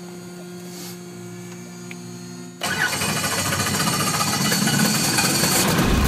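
Small piston-engine helicopter heard from inside its cabin as it starts up: a quieter steady hum, then about two and a half seconds in the engine and rotor noise comes in suddenly and loud, building steadily.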